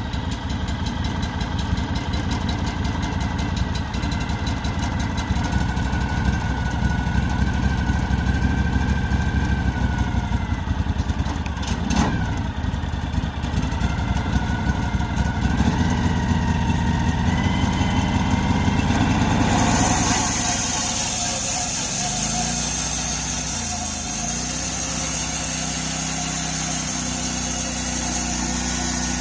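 The 20-horsepower Honda V-twin on a portable band sawmill running steadily just after a cold start from months of sitting. About twenty seconds in, the sound changes abruptly to a smoother, higher-pitched running note.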